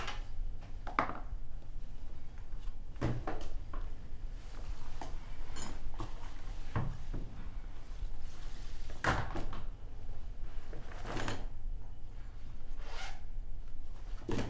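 A handful of separate soft knocks and thuds, spaced a couple of seconds apart, over a low steady hum.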